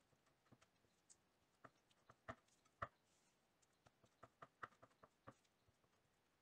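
Faint, irregular clicks and taps of a spatula against a mixing bowl as cream cheese and powdered sugar are stirred together into frosting, the loudest taps about two to three seconds in.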